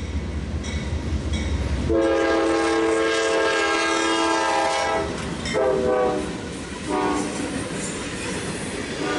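Air horn of a Norfolk Southern GE C44-9W freight locomotive blowing for a grade crossing. It gives a long blast starting about two seconds in, a shorter blast, a brief toot, and another blast beginning at the very end. The crossing bell dings steadily under a low rumble before the horn starts.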